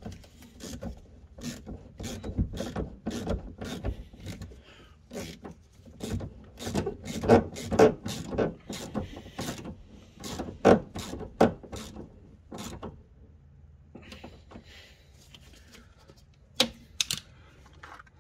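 Hand ratchet clicking in short strokes as the hose clip on the fuel filler neck's elbow is tightened. The clicking stops about two-thirds of the way in, and two sharp clicks follow near the end.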